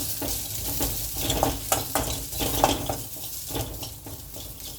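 Spices and chopped onion sautéing in a little oil in a pan, stirred with repeated scraping strokes against the pan over a light sizzle.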